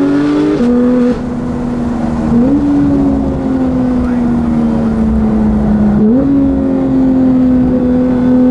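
Porsche 911 GT3 (991.2) naturally aspirated flat-six through a full Fi aftermarket exhaust, heard on the move in PDK Sport mode. The engine note sags slowly between sudden pitch steps: one drop just after the start as the PDK gearbox shifts up, and sharp jumps about two and a half and six seconds in as it shifts down.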